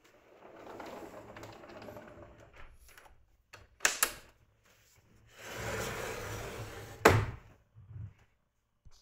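A door being handled: two stretches of sliding, scraping noise, a pair of sharp knocks about four seconds in, and a loud bang as it shuts just after seven seconds, followed by lighter thumps.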